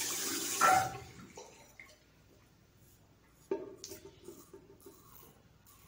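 Tap water running into a bathroom sink, with a splash, shut off about a second in. A sharp click follows a few seconds later, then a few faint scraping strokes of a single-edge safety razor on stubble.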